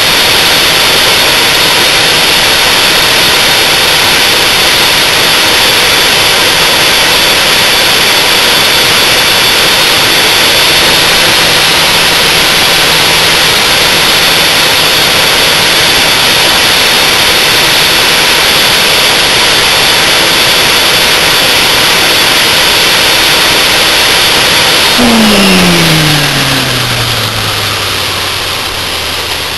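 Afterburning jet engine running loud and steady at high power. About 25 seconds in it is shut down, and its pitch falls as the turbine spools down while the roar fades.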